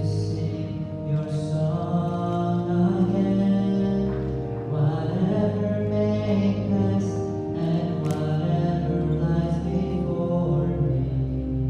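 Recessional hymn: singing over long held accompanying chords.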